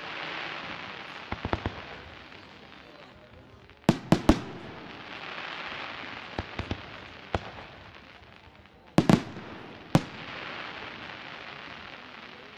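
Aerial firework shells bursting overhead with sharp bangs that come in clusters: a few small pops early, three loud bangs about four seconds in, and two more plus a single bang around nine to ten seconds. Each cluster trails off in a few seconds of hiss.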